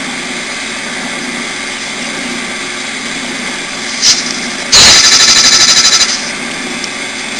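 Hardinge speed lathe running steadily as a round-nose tool turns a plastic piston. Just after four seconds in a short clack, then about a second and a half of loud, rapid rattling at roughly a dozen beats a second, from the nest of plastic chips wrapped around the spinning work slapping against the tool and carriage.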